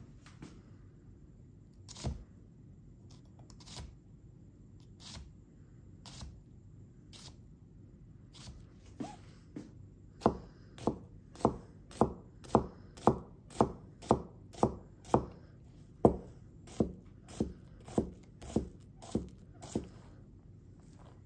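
Honyaki gyuto knife of 135WCrV4 carbon steel cutting a red onion, its edge tapping the cutting board. At first there are a few spaced knocks, then from about ten seconds in a steady run of cross-cuts, about two a second, each ending in a light tap.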